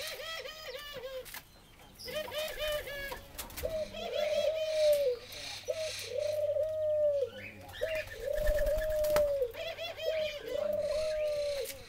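Barbary doves (ringneck doves) cooing and laughing. Runs of short, quick notes alternate with longer drawn-out coos, one call after another.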